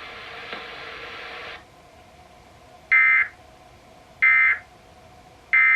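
Emergency Alert System End of Message signal: three short bursts of SAME digital data tones (the "NNNN" code), about 1.3 seconds apart, marking the close of the national test message. Before the first burst, a steady hiss runs for about a second and a half and then cuts off.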